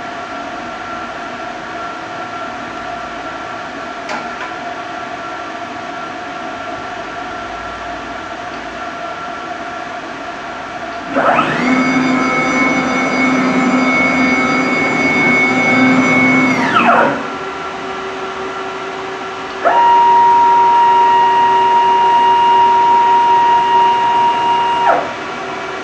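MultiCam MG Series CNC router spindle whining as it spins up to speed, holding a steady high whine for about five seconds, then winding down. A few seconds later a lower steady whine starts suddenly and stops near the end, over a steady machine hum.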